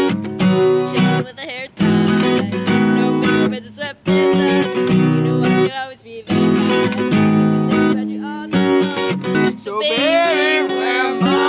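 Acoustic guitar strummed in chords, with short breaks between strums. A girl's singing voice comes in near the end.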